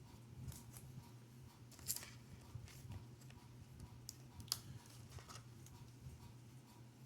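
Faint clicks and rustles of trading cards and their packaging being handled, a few scattered light snaps, the sharpest about two seconds in and again past the middle, over a low steady hum.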